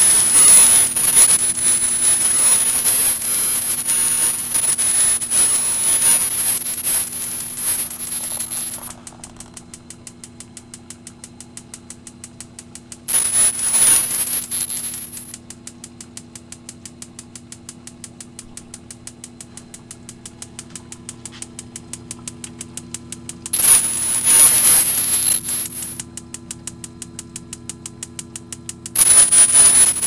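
Automatic electronic spark igniter of an HHO gas heater clicking steadily, about three to four sparks a second, without lighting a flame at the nozzle: too little gas reaches it because of a leaking tank cap. Under it a steady hum, broken four times by loud hissing spells with a high, wavering whine.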